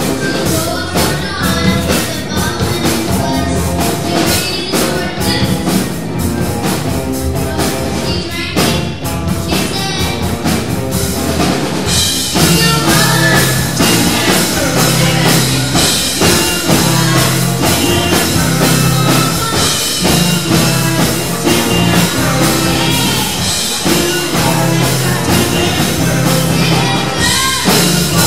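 Live rock band playing: electric guitars, bass, drum kit, keyboard and congas. The band gets fuller and louder about twelve seconds in.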